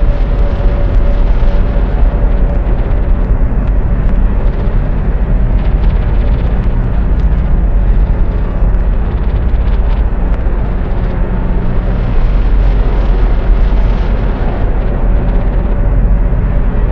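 A loud, dense wall of rumbling noise, heaviest in the bass. A thin steady tone sits over it at the start, drops away, and comes back near the end.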